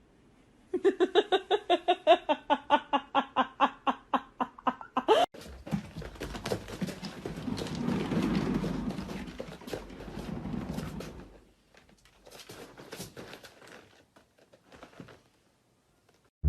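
A pet animal giving rapid repeated pitched calls, about four or five a second for several seconds, the last one sliding upward. Then rustling and scuffling noise with scattered clicks.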